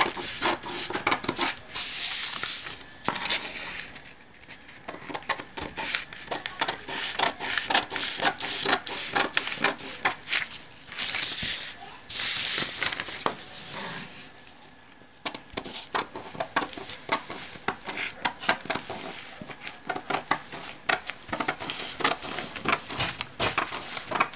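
Scissors cutting through stiff brown pattern paper in rapid, repeated snips, with two louder paper rustles as the sheet is shifted, about two seconds in and again near the middle.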